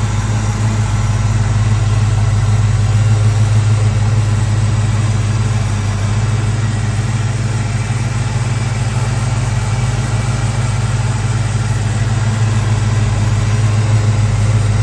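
1964 Ford Falcon's engine idling steadily on its rebuilt Ford 2100 two-barrel carburetor.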